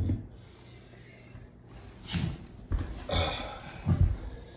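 Laminate click-flooring planks being handled and set down on an OSB subfloor: a handful of dull thumps with some scraping, the loudest about two and four seconds in.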